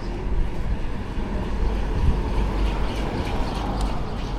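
Steady low rumble of busy city street ambience, with a few faint light clicks about three seconds in.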